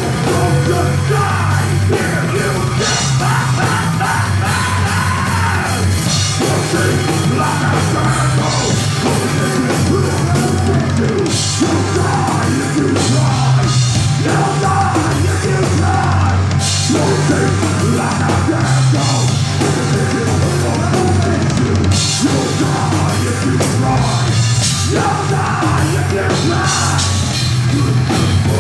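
Horror punk band playing live: electric guitar and a drum kit driving a rock beat, with a singer yelling and singing over them.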